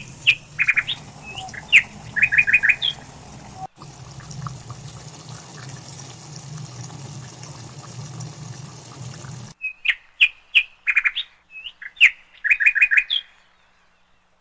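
Bird chirping: a short phrase of a few sharp chirps followed by a quick run of four or five notes. It is heard twice, the second time the same phrase over again. Between the two, a steady low hum with a faint hiss cuts off suddenly just before the second phrase.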